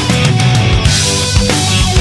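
Heavy rock music: a band playing with distorted guitars and drums.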